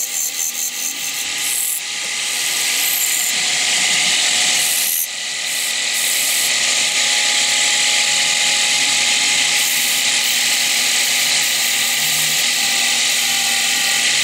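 A hand-held chisel cuts into the face of a wooden disc spinning on a belt-driven wood lathe: a steady hissing scrape of wood being turned, over the steady hum of the lathe. The sound dips briefly about five seconds in.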